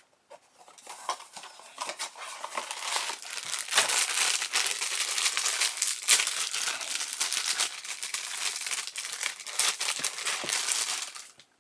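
Crinkling and crackling of the packaging of a Funko Mystery Mini figure as it is torn open and handled. The crackle is dense and continuous and stops shortly before the end.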